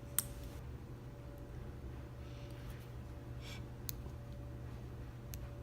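Small sharp clicks and a brief faint scrape from the metal parts of an Assa V-10 lock being handled as it is taken apart. The loudest click comes just after the start, with a few lighter ones later, over a steady low hum.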